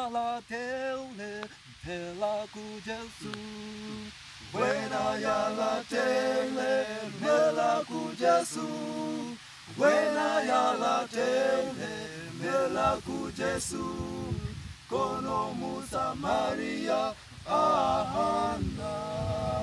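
A male vocal group of four singing a gospel song a cappella in close harmony, in sung phrases with short breaths between them.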